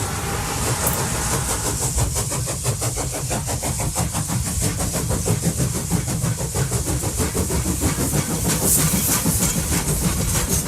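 Steady, fast rhythmic mechanical chugging, many even beats a second, with a strong low rumble underneath.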